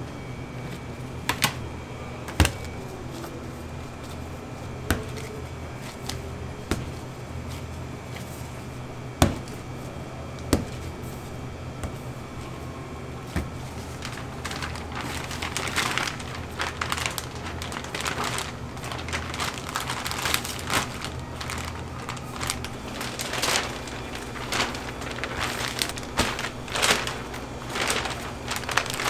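Kitchen work sounds over a steady low hum: a few sharp knocks in the first half, then, from about halfway in, a dense run of crinkling and crackling handling noises.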